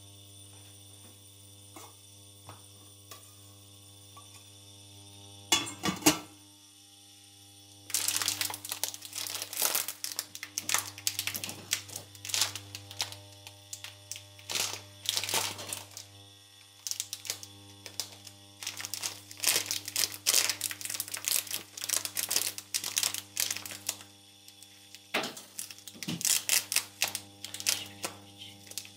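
Steady electrical hum underneath. About six seconds in, a stainless steel pot lid is set down on the pot with a clank. Then a plastic bag of popcorn kernels crinkles in bursts as it is handled and opened through most of the rest.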